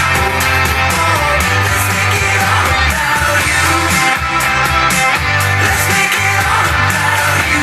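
A rock song with singing, played through JBL TLX 14 two-way bookshelf speakers (a 210 mm polymer-cone woofer and a 25 mm titanium-dome tweeter), with a strong, steady bass line.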